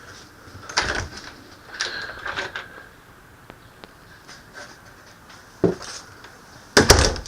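A few scattered knocks and thumps, like doors or cabinets being handled, with two louder knocks near the end.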